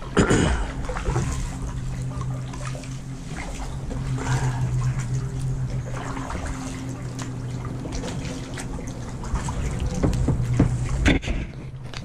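Kayak paddle strokes: the blade dipping into calm lake water, with drips and small splashes, a louder splash just after the start and another near the end. A faint steady low hum runs underneath.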